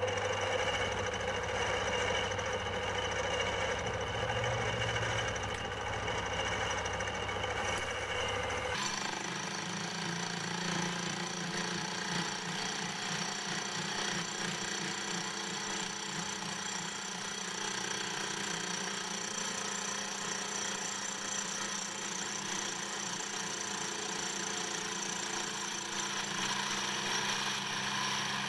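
A small metal lathe runs steadily as it faces a sector arm held on the faceplate. About nine seconds in the sound changes to a denser, brighter running noise as a cordless drill turns the cross-slide feed and the tool cuts across the face.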